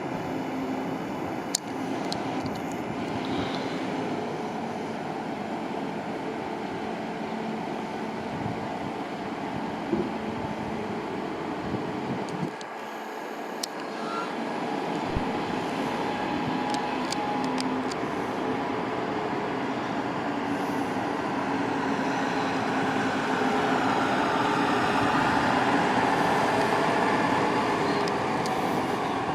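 A train running through the station: a steady rumble with a low hum and a few scattered clicks, growing louder in the last several seconds.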